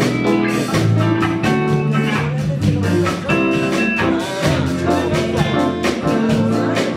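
Jazz-style instrumental music with guitar chords over a steady beat.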